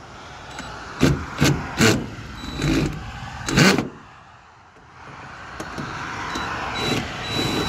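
Five short, sharp sounds in the first half, then a motor vehicle's running noise that swells over the last few seconds.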